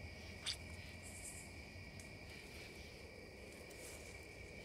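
Faint, high, steady chorus of night insects, with a single short click about half a second in.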